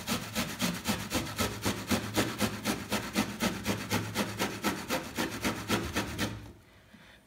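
An onion being grated finely on a stainless steel box grater: quick, even rasping strokes, about five a second, that stop about six seconds in.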